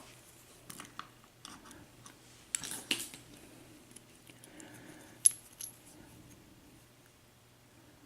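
Small metal padlock being handled and taken apart: scattered light metallic clicks and clinks, a cluster about two and a half seconds in and a sharp click a little after five seconds.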